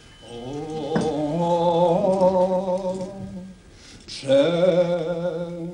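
Sung liturgical chant in Polish from a Catholic Mass: a voice holding a phrase almost on one note, then pausing briefly about three and a half seconds in before starting a second phrase.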